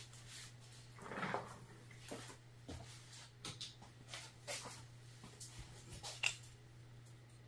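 Faint clicks and light scrapes of a small Phillips screwdriver and magazine parts being handled, over a steady low hum, with a short louder rustle about a second in.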